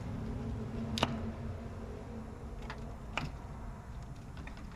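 A few sharp plastic clicks from spark plug wire boots being gripped and worked on an LT1 Optispark distributor cap. There is a loud click about a second in, another about three seconds in, and fainter ticks near the end, over a low steady hum.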